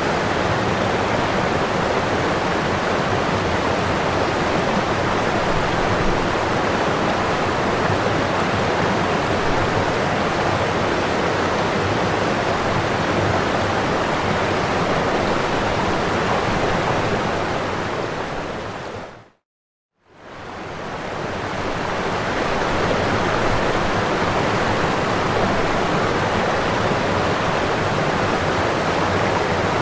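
Waterfall rushing in a steady, even roar of falling water. About two-thirds of the way through it fades smoothly out to a moment of silence, then fades back in.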